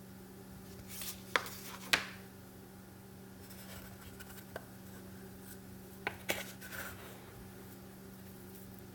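Hands handling a one-cup coffee maker: sharp plastic clicks with rubbing and scratching, two clicks about a second and a half in and another pair about six seconds in, over a steady low hum.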